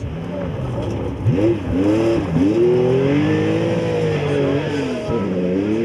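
Classic Porsche 911 rally car's air-cooled flat-six accelerating hard on a gravel stage, passing and pulling away. Its revs drop and climb sharply with gear changes a little over a second in and again around two and a half seconds, hold high, then dip and rise once more near the end.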